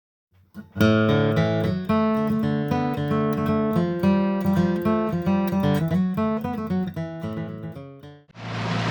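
Background music of a strummed acoustic guitar, which cuts off suddenly near the end and gives way to the steady running noise of a boat's motor.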